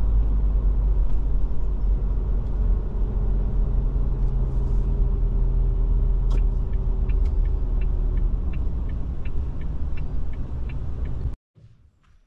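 Car driving, a steady low rumble of engine and road noise. From about halfway, a light ticking about three times a second joins it. The sound cuts off abruptly near the end.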